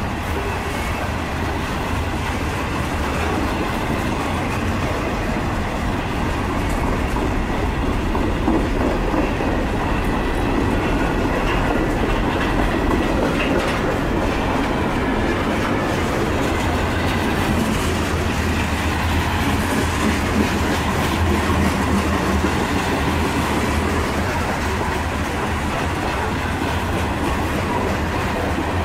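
Freight train rolling past: a steady rumble of railcars with the wheels clacking over the rail joints, swelling a little in the middle.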